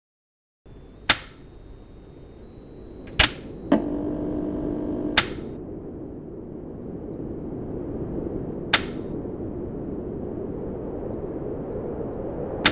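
Old television set: a rumbling static hiss sets in just under a second in, broken by about six sharp clicks. A brief steady hum sounds between about four and five seconds in.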